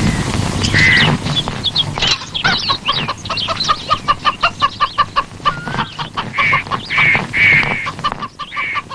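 Chickens clucking: a long run of short, quick clucks, about four a second, with a few longer, higher cackling calls mixed in.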